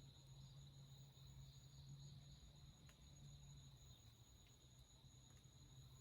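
Faint forest ambience: a steady chorus of insects trilling continuously at a high pitch, over a low steady hum.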